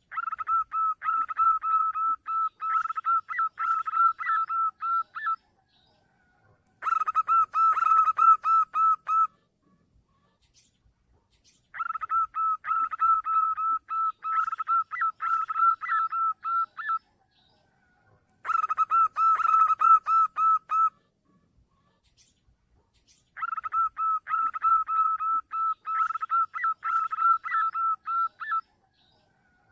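Zebra dove (perkutut) calling in five bouts of rapid, evenly pitched staccato coos, each bout a few seconds long with short pauses between. This is a lure call, played to draw in wild zebra doves.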